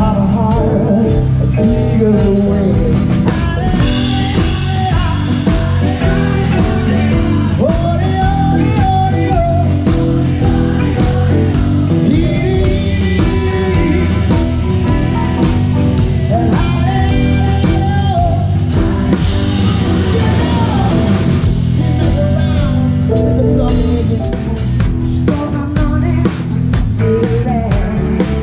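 A live band playing: a drum kit heard close up, keeping a steady beat with cymbals, under electric guitar and a singer's voice.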